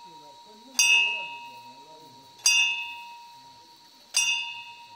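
A metal temple bell struck at a slow, even pace, three strikes about a second and a half apart, each ringing out clearly and fading, as is done during a puja aarti. Low voices murmur underneath.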